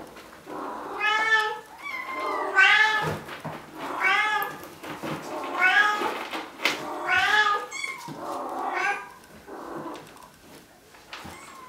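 Bengal kitten meowing loudly and repeatedly, about six high calls in a row, each under a second and rising then falling in pitch.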